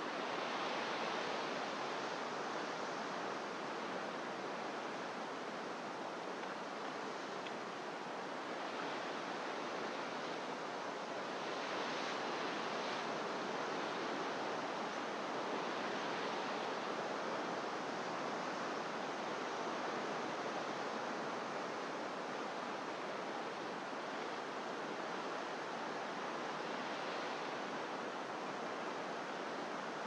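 Pacific surf breaking on rocky shore: a steady wash of sea noise that swells slightly now and then.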